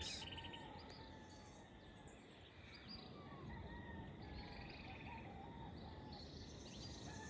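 Faint early-morning birdsong: scattered short chirps from birds in the bush, with an insect trill buzzing near the end, over a steady low background noise.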